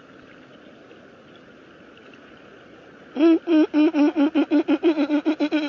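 A person laughing in a quick, rhythmic run of pulses that speeds up, starting about three seconds in over a steady background rush.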